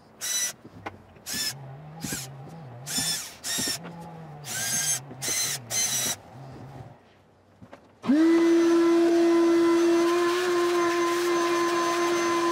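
A cordless drill run in about eight short trigger bursts while drilling out old screw holes in a fiberglass boat deck. About eight seconds in, a wet/dry shop vacuum switches on, spins up and runs steadily and loudly to clear the drilled holes.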